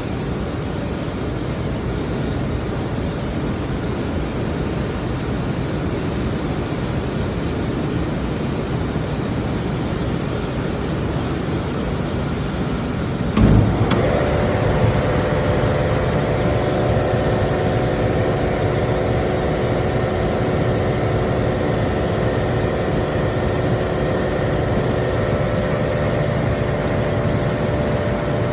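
Commercial HVAC equipment running with a steady rush of air. About halfway through there is a sharp click, and a steady hum made up of several tones starts up and carries on over the rush.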